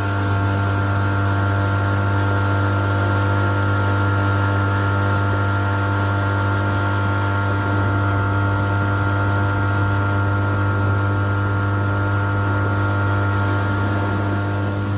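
Outboard motor on a Gheenoe running at a steady throttle underway: a constant low drone with steady overtones and an even hiss over it, unchanging throughout.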